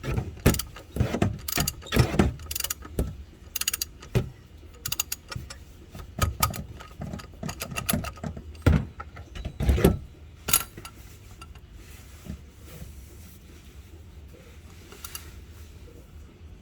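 Irregular metallic clicks and clanks of a wrench working the oil filter loose on a Toyota Highlander V6, cracking it just enough to let the oil drain. The clicking is busy for about the first ten seconds, then turns faint and sparse.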